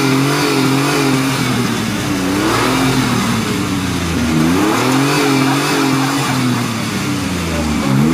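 Nissan Xterra's engine revving hard and held high while the SUV is stuck in deep mud with its wheels spinning. The revs dip and climb back three times.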